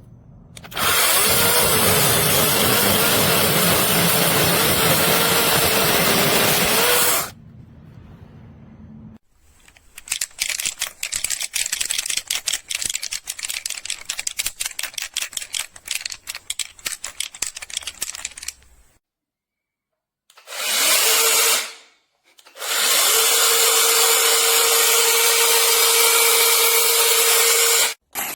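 Cordless brushless mini chainsaw with a 6-inch bar, running in bursts. First comes a run of about six seconds with its motor pitch wavering, then several seconds of rapid, irregular crackling. Near the end there is a short burst that winds down, followed by a steady five-second run at a constant pitch.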